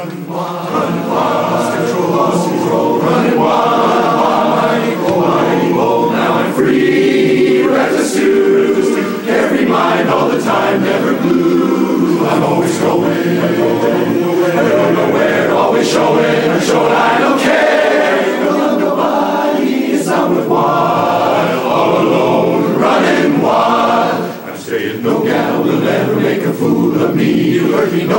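Men's barbershop chorus singing a cappella in close harmony, with a short breath pause about three-quarters of the way through.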